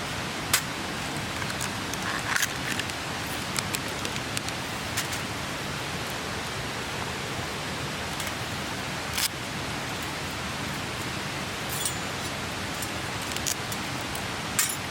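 Steady rushing of a clear mountain stream, with a scatter of short sharp clicks and ticks on top.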